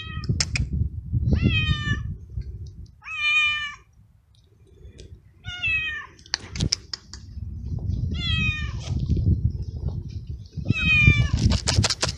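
Young tabby stray cat meowing loudly and repeatedly: five meows about every two to three seconds, each falling in pitch, over a low rumbling noise.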